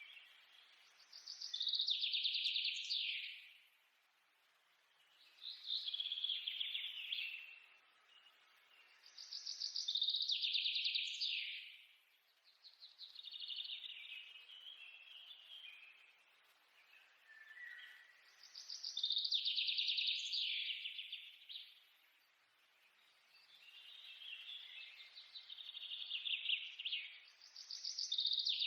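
A bird chirping in repeated trilled phrases, each a couple of seconds long and sliding down in pitch, about once every four seconds.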